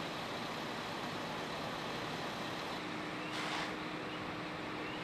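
Fire trucks' engines running steadily, with a brief hiss about three and a half seconds in.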